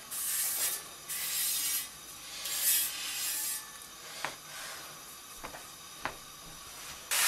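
Hand rubbing over the surface of a hammered copper tray in three rasping strokes, followed by a few light knocks as the tray is handled.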